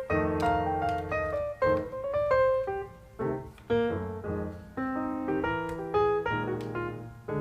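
Background piano music, a series of played notes and chords.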